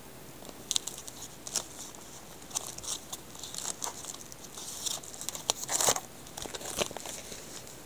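Irregular close rustling, crinkling and clicking of a hand fumbling right at the microphone, with a louder rustle about three-quarters of the way through.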